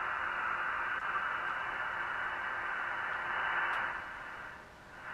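Receiver hiss from an Elecraft KX3 transceiver tuned to the 17 m band, played through the go box's loudspeakers. Under it a faint low tone comes and goes in short even pulses: the pulse interference that the go box's two cooling fans put into the receiver audio. The hiss dips near the end.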